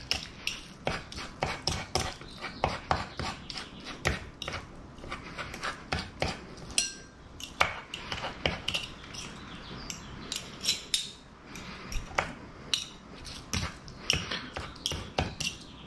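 Two metal forks clicking and scraping against each other and a wooden cutting board as cooked chicken is shredded, in many quick, irregular strokes.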